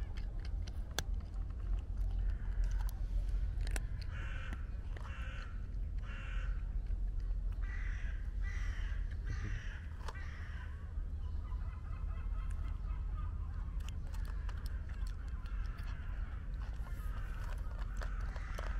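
Crows cawing in short series of harsh calls, loudest in the middle, over a steady low rumble. Scattered sharp clicks come from a cat crunching dry kibble.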